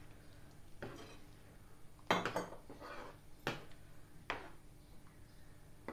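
Metal spoon stirring thick chicken liver masala gravy in a non-stick pan, clinking and scraping against the pan about five times.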